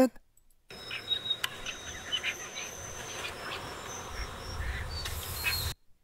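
About five seconds of AI-generated MMAudio ambience meant as an old village with birds and a rusty bicycle on a bumpy road: short bird chirps and high whistles over a steady rustling hiss. A low rumble swells near the end, then it cuts off suddenly.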